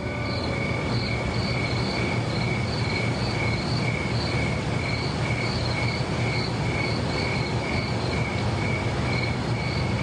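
Crickets chirping in an even rhythm, about two chirps a second, over a steady hiss and low hum.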